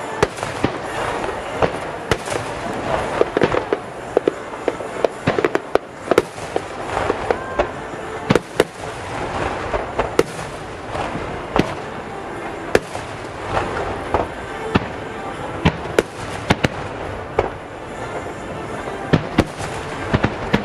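Fireworks display: many sharp bangs in quick, irregular succession over a continuous crackle of bursting shells.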